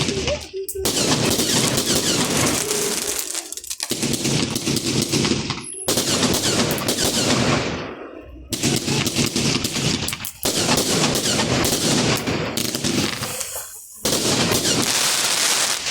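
Gemstone Fireworks 'The Rage' 100-shot compound firework cake firing: rapid strings of bangs in volleys of a few seconds each, with brief lulls between them as the cake moves from one section to the next.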